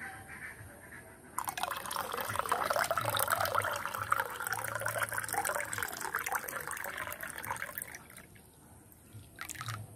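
Rubbing alcohol being poured into a glass jar, splashing as the jar fills. The pour starts about a second and a half in and tapers off about two seconds before the end.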